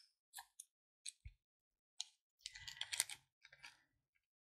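Faint scattered clicks, busiest about halfway through, from silver jewelry being handled.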